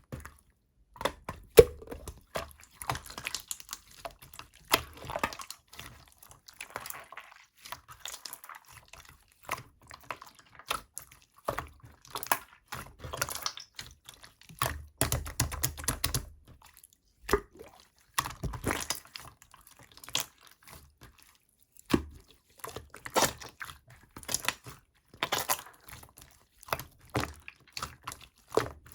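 Two-layer slime, a clear layer and an opaque layer, being squeezed, poked and stretched by hand. It gives off a stream of irregular small wet clicks, pops and squelches, with an occasional louder pop.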